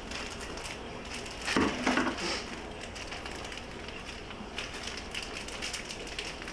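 Metal seat slider rail hardware being handled and worked, with a short burst of knocks and rattles about a second and a half in and light clicks of handling otherwise.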